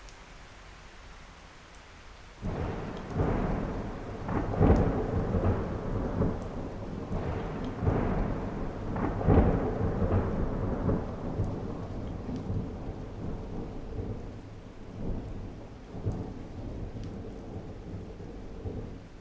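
Heavy rain falling steadily; about two and a half seconds in, a roll of thunder breaks in suddenly, rumbling with several louder cracks before slowly dying away toward the end.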